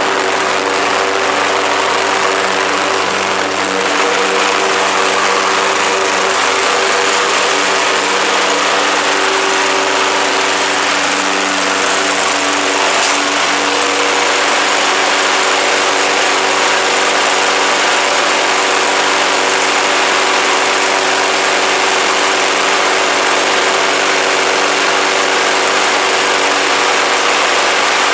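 Craftsman 21-inch push mower's Briggs & Stratton 550 series 140cc single-cylinder engine running steadily at an even speed.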